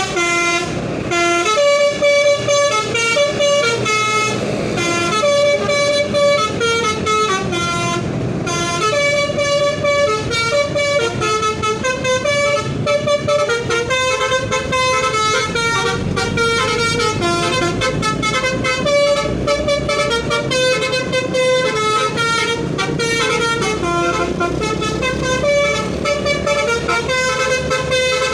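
Telolet horn, a multi-tone musical vehicle horn, playing a fast tune of short stepped notes without a break, over a low rumble.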